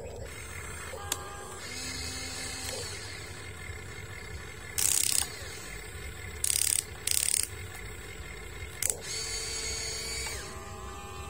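Huina RC excavator's small electric motors whining, the pitch shifting and switching as the boom, arm and bucket move. Around the middle come a few short, loud scraping bursts as the bucket works the sand.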